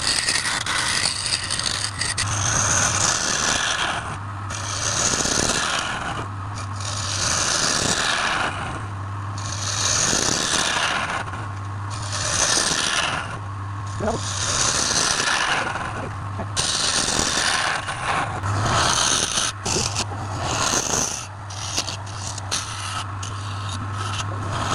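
A tool scraping against a coconut box spinning on a woodturning lathe, in repeated passes about every two seconds, over the steady hum of the lathe motor.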